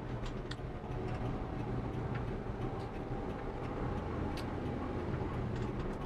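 A vehicle driving along: a steady low engine hum with road noise, and a few faint clicks.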